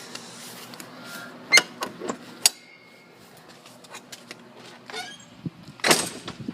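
Faint steady hum of running central air conditioner condenser units, broken by a few sharp knocks: two loud ones about one and a half and two and a half seconds in, and another near the end.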